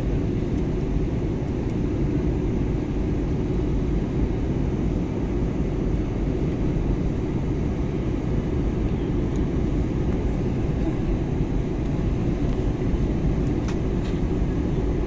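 Steady low rumble of an airliner cabin in flight: engine and airflow noise heard from inside the cabin.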